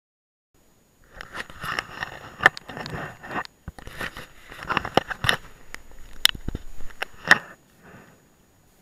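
Handling noise from gloved hands and clothing rubbing and knocking against the camera right at its microphone: close crackling and scraping with many sharp clicks. It starts about a second in and stops shortly before the end.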